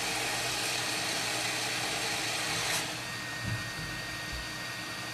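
Hot air rework station's blower hissing steadily from its nozzle. About three seconds in the hiss drops slightly and a faint steady whine joins it, with a brief low knock just after.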